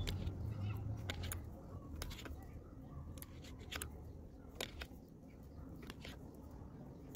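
Knitting needles clicking and tapping together as knit stitches are worked, a scattering of light, irregular clicks over a low handling rumble.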